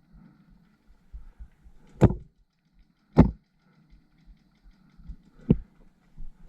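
Paintball marker firing single shots: three sharp pops, irregularly spaced about a second or two apart, with a fourth just at the end.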